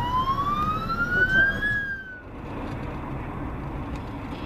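Ambulance siren wailing in a slow rise and fall, rising to its peak then starting to fall before cutting off abruptly about two seconds in. After that, steady engine and road noise from inside a car.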